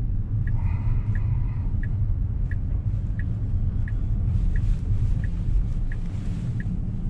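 Tesla Model S turn-signal indicator ticking evenly, about three ticks every two seconds, while the car turns right. Under it runs the low rumble of road and cabin noise, with a brief held tone about half a second in.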